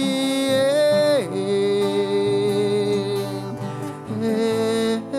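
A song sung with a guitar-type plucked string accompaniment. The singer holds long notes and slides down in pitch about a second in.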